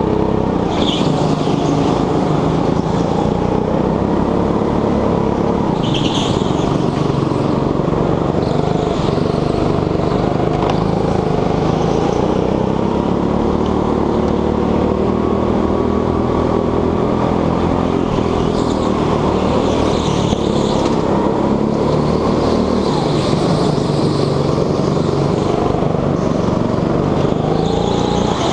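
Petrol go-kart engine heard from the driver's seat, running hard and rising and falling in pitch as the kart accelerates out of corners and lifts off into them, with a couple of brief high squeaks.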